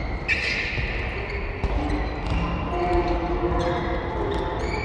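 Basketball bouncing on a hardwood gym floor, with irregular sharp bounces and short high squeaks from sneakers on the court.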